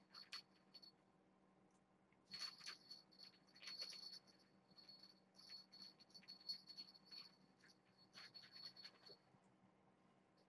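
Faint rustling and light scratching in irregular bursts as a fabric cat toy is shaken and handled for kittens playing on a carpeted floor.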